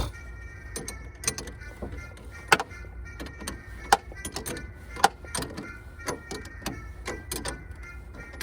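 Hand tools and battery-terminal hardware clicking and knocking irregularly during a battery terminal repair, with a sharper knock every second or so.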